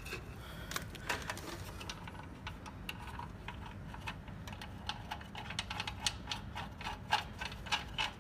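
Irregular light metallic clicks and taps of a bolt being fitted by hand into a burner's fan-motor housing, more frequent in the second half, over a steady low hum of boiler-room machinery.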